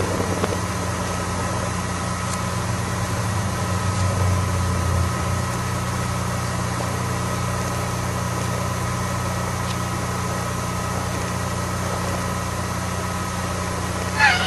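A steady low mechanical or electrical hum with two thin, constant high tones above it, running through the whole stretch. Near the end comes a short, wavering budgerigar chirp.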